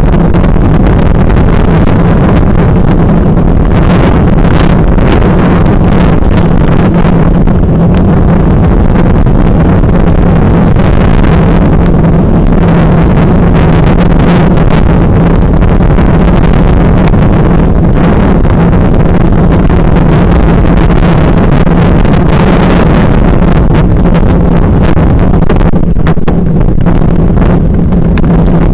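Loud, steady wind buffeting on an action camera's microphone as it rides on a mountain bike down a rough gravel trail, with rattles and knocks from the bike over the bumps.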